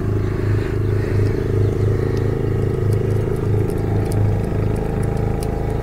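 An engine idling steadily: a low, pulsing hum with a few faint light ticks over it.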